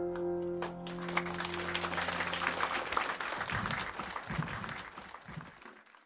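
The song's final sustained piano chord rings out and dies away. Audience applause starts a little under a second in and fades out near the end.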